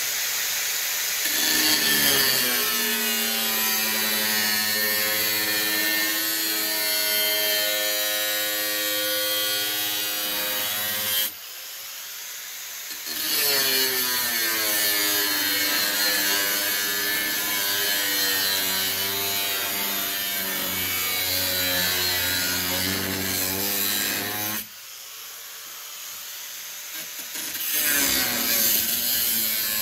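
A power saw cutting out a faceplate, its motor running with a steady pitch that sags and recovers as it works through the cut. It eases off twice, about 11 and 25 seconds in, then picks back up.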